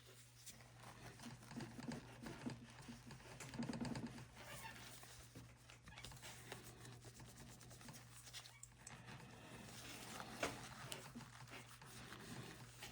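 Faint, irregular rubbing of a microfiber rag polishing a Zippo lighter's metal case, in short uneven strokes.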